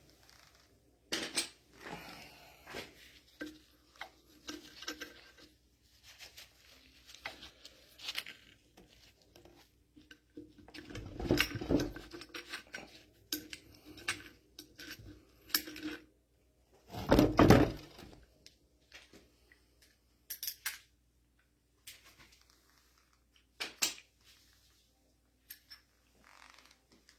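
Metal hand tools and bolts clinking and clanking against the excavator's hydraulic control valve block as its sections are unbolted, in scattered short clicks with two louder knocks, about eleven and seventeen seconds in.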